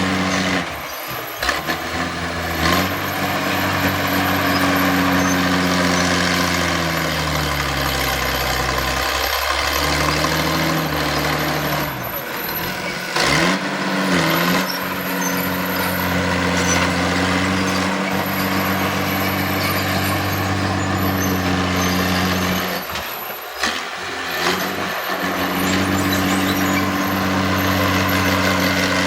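Heavy diesel earthmoving machinery running under varying load. The engine note drops and recovers several times, most clearly about seven to nine seconds in, with a few brief breaks along the way.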